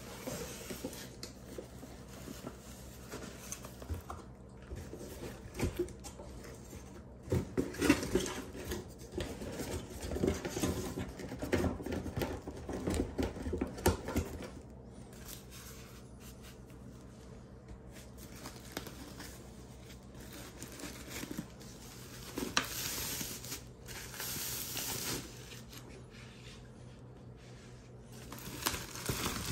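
Unboxing handling noise: a cardboard box and a cloth drawstring bag rustling, scraping and knocking as a helmet is lifted out, with clusters of sharp knocks in the middle, and a plastic bag crinkling near the end.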